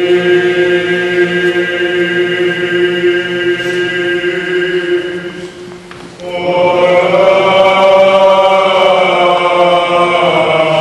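Orthodox Byzantine chant: voices sing over a steady held drone note. About six seconds in, the chanting dips briefly, then comes back louder with a fuller melodic line.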